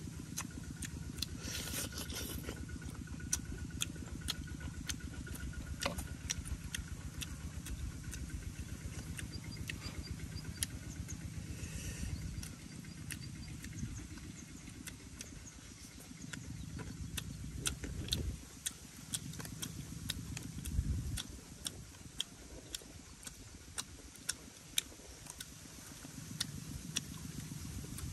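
Close-up eating sounds: a man chewing and smacking his lips as he eats fish with his hands, giving many short wet clicks. Under them runs a low rumble, steady at first and then coming and going after about twelve seconds.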